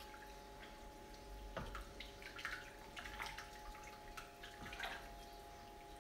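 Wooden spoon stirring brothy rice in a large stainless-steel pot: faint, irregular sloshing and light clicks of the spoon in the liquid, over a faint steady hum.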